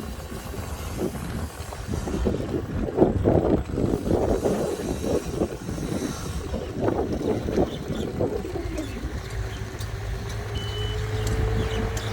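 Passenger boat engine running with a steady low rumble, with irregular rushing noise over it for several seconds. Near the end, an engine tone rises slowly in pitch.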